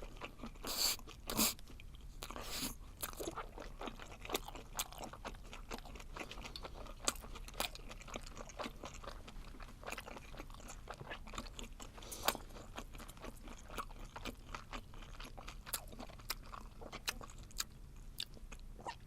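Chewing and crunching of spicy webfoot octopus wrapped in dried laver, a steady stream of small crunches and mouth clicks. A few louder bites come in the first three seconds.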